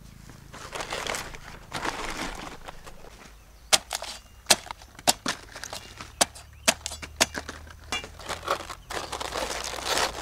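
Rustling and crunching of hands working something, with a run of about eight sharp clicks spread over some four seconds in the middle, then more rustling.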